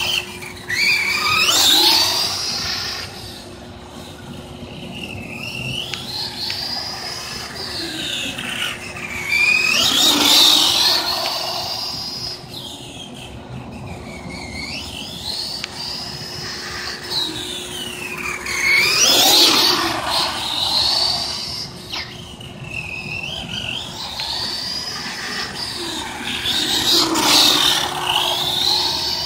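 Redcat Volcano EPX 1/10-scale electric monster truck running laps: a high whine from its electric motor and gears that rises and falls as it speeds up and slows, swelling loudest as it passes close, about every eight or nine seconds.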